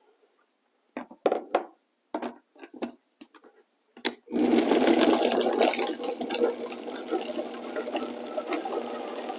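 Grapes dropping into a Vitamix blender jar in a few short knocks, a click as the lid goes on, then about four seconds in the Vitamix motor starts and blends the grapes on their own, loudest at first and settling lower as the grapes turn to liquid.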